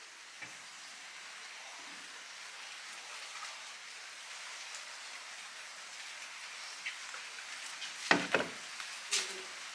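Steady rain falling, an even hiss that goes on throughout. A few sharp knocks about eight seconds in and another just after nine seconds, as things on the patio are handled.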